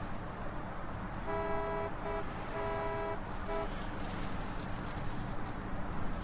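A car horn honks four times in a long-short-long-short pattern, over a steady background hiss.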